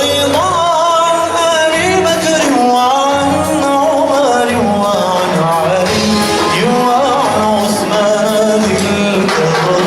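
Live performance of a song: a solo voice singing a melody over instrumental accompaniment.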